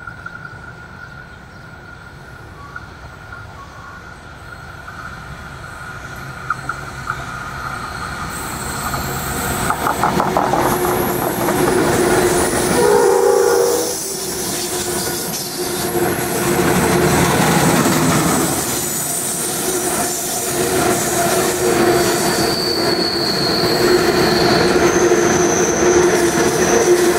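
NSW 82 class diesel-electric locomotives hauling a loaded coal train, growing steadily louder as they approach and pass. Then the coal hopper wagons rolling by with a steady rumble and wheel clatter, with thin high wheel squeals in the later part.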